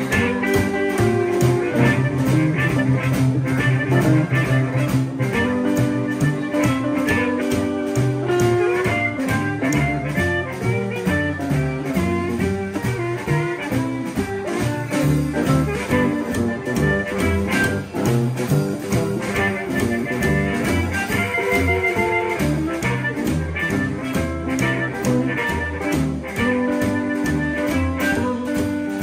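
Live Chicago blues band playing an instrumental passage: hollow-body electric guitar, upright bass and drum kit, with a steady beat.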